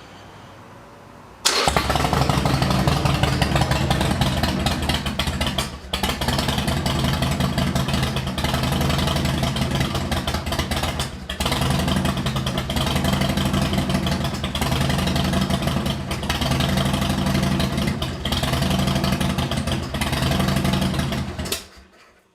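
Harley-Davidson V-twin motorcycle engine catching suddenly about a second and a half in and running loud, with a lumpy repeating pulse. It dips briefly about five times, like hiccups, before shutting off near the end.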